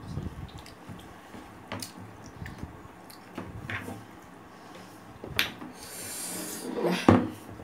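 Close-up mukbang eating sounds of dal and rice: scattered wet clicks, lip smacks and chewing, with a louder sound near the end.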